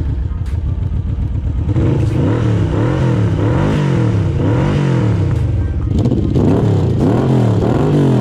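Yamaha VMAX's 1200 cc V4 engine running and being revved up and down over and over, its pitch rising and falling in a regular rhythm about once a second and a little faster near the end.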